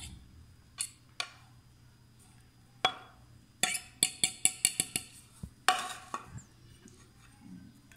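Metal fork clinking and scraping against a ceramic plate as shredded chicken is pushed off it into a glass dish: a few scattered clinks, then a quick run of ringing taps about four seconds in, and a longer scrape just before six seconds.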